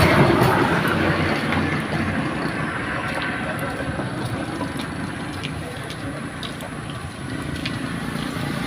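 Motor-vehicle traffic noise, loudest about the first second as a vehicle passes, then a steady lower rumble, with a few faint small clicks of handwork in the middle.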